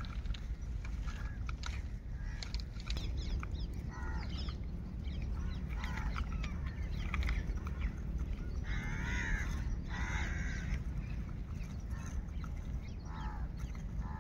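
Fowl calling in short, harsh, repeated calls every second or two, loudest near the middle, over a steady low rumble.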